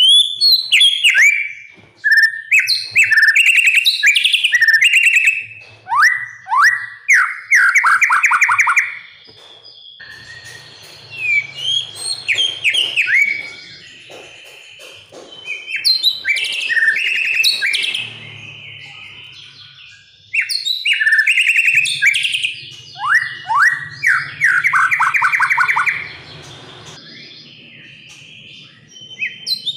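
White-rumped shama singing loud, varied phrases. Each phrase is a fast series of repeated falling notes mixed with whistles, coming in bursts with short pauses between.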